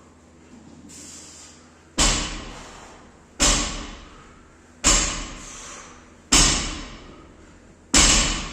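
Loaded barbell with bumper plates hitting the gym floor on each rep, five heavy impacts about a second and a half apart, each fading over about a second.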